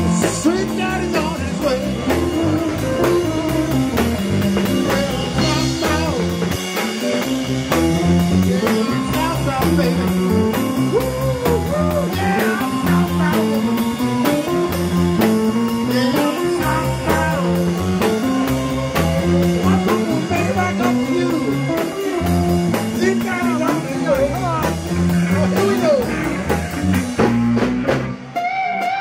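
Live blues-rock band playing: electric guitars, bass guitar and drum kit, with a bass line climbing and falling in a repeating pattern. About a second before the end the full band drops out, leaving a guitar.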